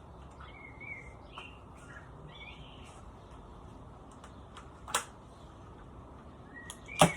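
Two suppressed shots from a bolt-action spring airsoft sniper rifle, sharp short cracks about two seconds apart, the second louder. Birds chirp in the background.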